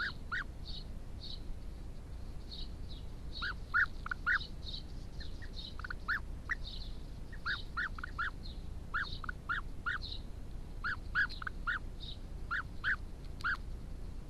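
European bee-eaters calling: many short calls repeated in quick runs and overlapping each other, some higher-pitched and some lower.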